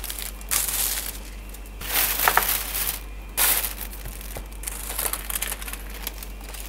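Thin plastic carrier bag crinkling and rustling in four or five separate bursts as a stack of manga books is taken out of it.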